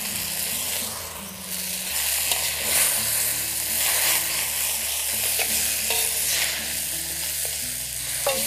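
Water spinach (kangkung) stir-frying in a pan: continuous sizzling as a spatula stirs and tosses the greens, with scraping strokes now and then.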